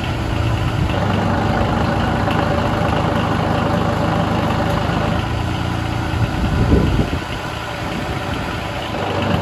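Small Kubota diesel engine idling steadily, revved briefly about seven seconds in, then settling back.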